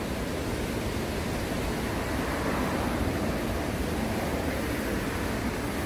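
Small sea waves washing onto a sandy beach: a steady rush of surf that swells slightly near the middle.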